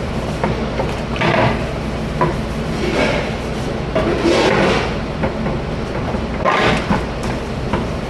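Dishes and racks knocking and clattering in a commercial kitchen dish room over a steady machine hum, with a few short bursts of rushing noise.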